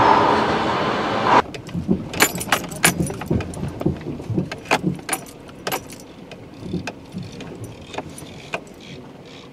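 A loud, steady rushing street noise that stops abruptly after about a second and a half. Then come irregular sharp metallic clinks and knocks: hand tools and metal parts being handled under a car's open hood.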